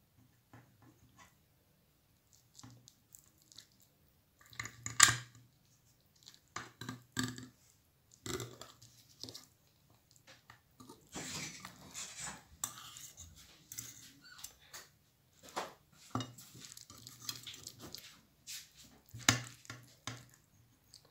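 Metal knife and spatula scraping and tapping against a glass baking dish while a baked lasagna is cut and a slice lifted out. The sounds come in short, scattered scrapes and clicks, louder about five seconds in, around twelve seconds and near the end.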